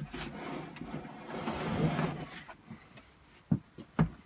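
Parts of a replica R2-D2 droid being handled as a leg is fitted to the body: a scraping, rubbing noise for the first couple of seconds, then two short knocks near the end.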